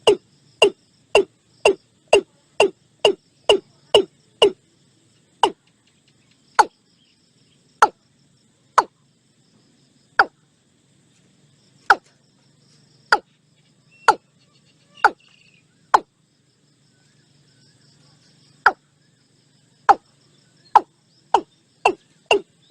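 Watercock calling: a series of short, deep 'kok' notes, about two a second at first, slowing to about one a second through the middle, then speeding up again near the end.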